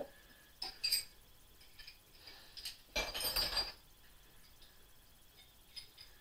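Metal hand tools clinking as they are handled and set down. Two short clinks come about a second in, then a longer clatter around three seconds in, and a few faint ticks near the end.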